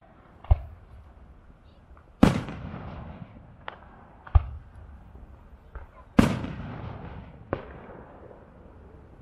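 Aerial fireworks bursting: about six sharp bangs with smaller pops between. The two loudest come about two seconds and six seconds in, each trailing off in a long echo.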